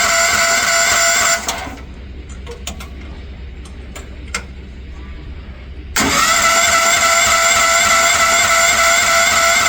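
Electric starter cranking the Future FT15 mini excavator's petrol engine, a steady high whine. It stops about a second and a half in and starts again after a pause of about four and a half seconds, with a few light clicks in between. The engine doesn't catch, which the owner puts down to old, bad gas.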